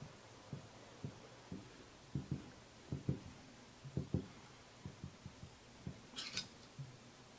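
Soft, low taps and thumps from a heated nakwha burning iron being dabbed and pressed onto hanji paper, several coming in quick pairs. There is a brief papery scrape about six seconds in.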